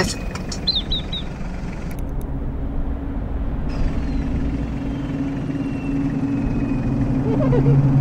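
Toyota Land Cruiser Prado's engine idling, a low steady hum heard inside the cabin that grows a little louder near the end. A bird gives a quick run of four high chirps about a second in.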